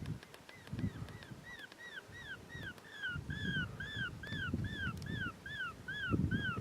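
Electronic predator caller playing a rapid, very regular series of identical high, arching yelps, about three a second, starting about a second and a half in. Low rustling thumps sound underneath.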